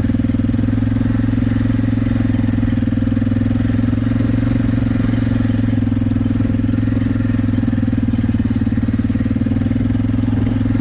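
Small vehicle engine running at a steady speed, without revving up or down.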